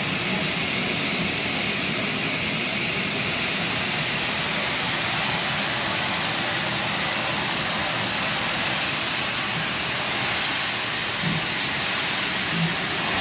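Steam escaping from a standing Great Western Railway Large Prairie 2-6-2 tank locomotive: a steady, loud hiss that grows slightly louder about ten seconds in.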